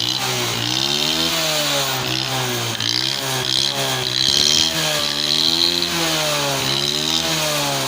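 Honda CG70 motorcycle's single-cylinder four-stroke engine being revved up and down repeatedly, its pitch rising and falling several times.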